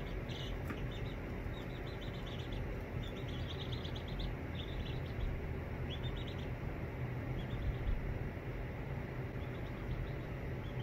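Baby chicks peeping in short, quick runs of high peeps, several times over, as they settle under a brooding hen, over a steady low hum.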